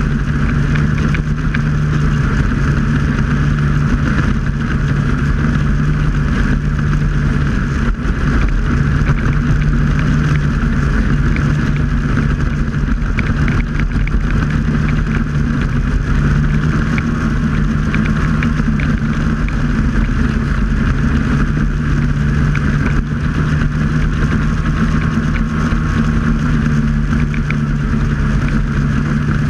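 Snowmobile engine running at a steady cruising speed, a constant loud drone with no change in pitch.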